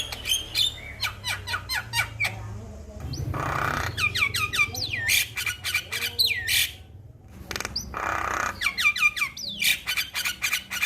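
Male Javan myna (jalak kebo) singing a fast run of clicking notes and falling whistles, broken twice by longer, harsh, noisy squawks.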